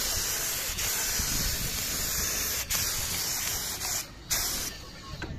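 Compressed-air spray gun hissing as it sprays polyurethane sealer onto pine boards: one long pass of about four seconds with a brief break partway, then a short burst after a pause.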